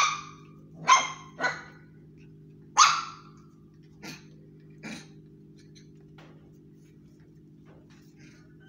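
Puppies yapping while they play-fight: four sharp, high-pitched yaps in the first three seconds, then two fainter ones, over a steady low hum.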